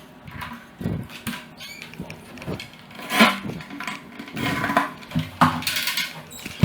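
Irregular knocks, clatter and scraping of wood and hand tools being handled, in short separate bursts with no steady motor running.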